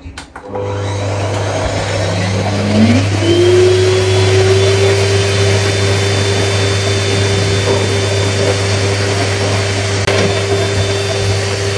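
Professional pet grooming dryer on its high speed and heat setting: it switches on, its motor whine climbs in pitch for a few seconds as it spins up, then holds a steady high whine over a rush of blown air and a low hum.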